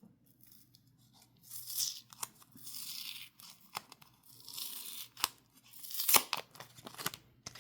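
Sticker packaging being handled and opened: irregular bursts of crinkling and rustling with a few sharp clicks, the loudest about six seconds in.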